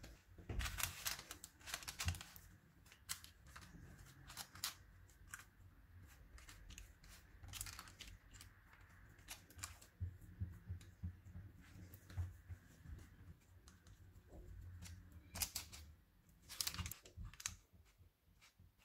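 Silicone spatula spreading and pressing thick burfi dough into a tray lined with butter paper: faint, irregular scraping and paper rustling, with clusters of louder scrapes about a second in and again near the end.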